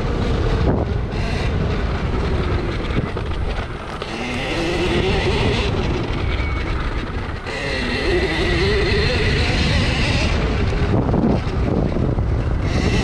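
Husqvarna EE 5 electric mini dirt bike's motor whining, its pitch rising and falling with the throttle, over a constant rumble of the bike on rough grass and wind on the microphone.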